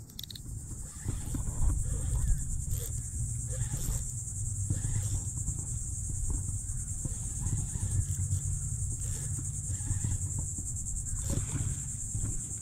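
Insects buzzing steadily at a high pitch, like crickets, over a continuous low rumbling noise.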